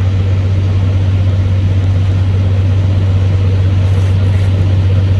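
A vehicle engine idling steadily, a low, even drone that holds the same pitch throughout.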